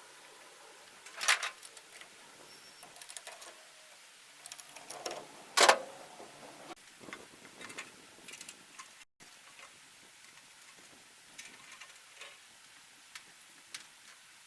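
Scattered clicks, knocks and handling noises of hands and tools working on a hay baler's belt drive while its drive belt is fitted around the pulleys. Two louder knocks come about a second in and near the middle, with lighter clicks between.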